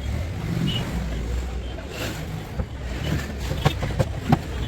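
Carpentry handling noises: a few sharp knocks and clicks of wood and fittings, bunched in the second half, over a low steady rumble.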